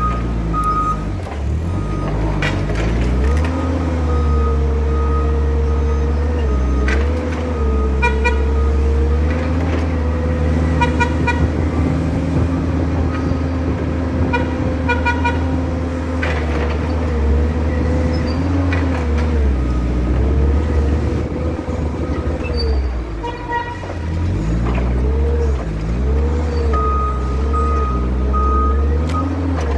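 Forklift driving along with a steady drive hum whose pitch rises and falls with its speed. Its horn beeps in short bursts several times, and a repeating warning beep sounds near the end.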